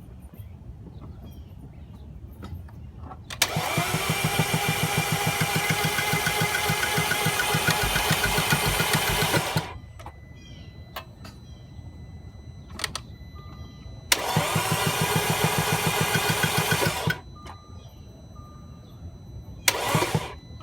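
2010 Audi A4's starter cranking the engine three times without it catching: a long crank of about six seconds, a shorter one of about three seconds, and a brief stab near the end. It is a car that turns over but won't start.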